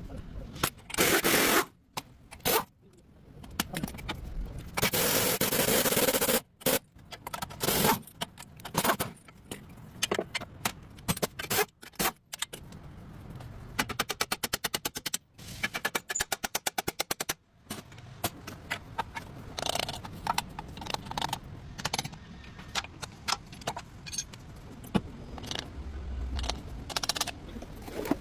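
Mechanic's tools at work on a car's axle: irregular metal clanks, knocks and scrapes. About halfway through come two spells of rapid, evenly spaced rattling, each a second or two long.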